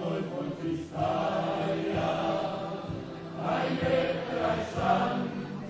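A group of men singing together live into a microphone, a carnival song sung in chorus with steady accompaniment beneath, the voices swelling about a second in and again past the middle.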